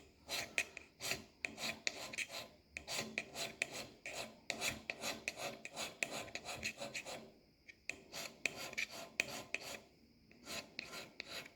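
Area scraper being pushed in quick repeated strokes across a cast iron lathe cross slide, shaving off the high spots left by the marking ink: a rasping scrape about two to three times a second, with two short pauses in the second half.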